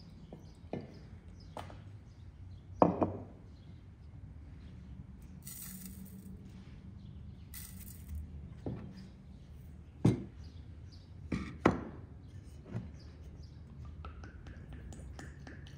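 Cookware clinking and knocking on a wooden board as pots, lids and a bowl are handled and set down, with about nine sharp knocks, the loudest about three seconds in. Twice near the middle comes a brief hiss of salt sprinkled over turkey meat in an enamel pot. Near the end a rising tone begins as water pours from a clay jug into the pot.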